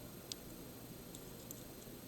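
A few faint, sharp clicks and ticks of small tools working at the pins of a partly disassembled DOM IX10 dimple lock, with one clearer click about a third of a second in and a few lighter ones near the middle.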